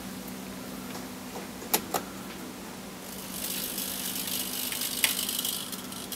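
Two sharp clicks just under two seconds in, then a small hobby servo motor whirring for about two and a half seconds as it swings a model train order semaphore blade up to horizontal, with a click partway through.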